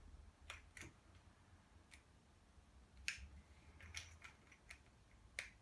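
A few faint, irregular clicks and taps of small plastic chemistry-set parts being handled, as a piece screwed into a plastic cup is fiddled with.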